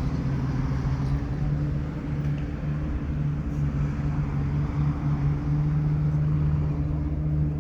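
A motor engine running steadily at an unchanging pitch, a constant low hum over a wash of background noise.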